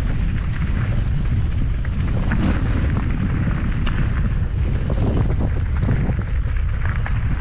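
Wind rumbling on the microphone of a camera riding along on a mountain bike, with a steady stream of small clicks, crunches and rattles from the tyres and bike on a rough dirt trail.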